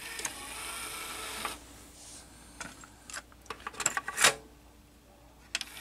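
Technics RS-TR170 cassette deck mechanism: a whirr for about a second and a half, then a series of mechanical clicks, the loudest about four seconds in. This fits play being pressed on the second deck, whose head-raising solenoid does not engage.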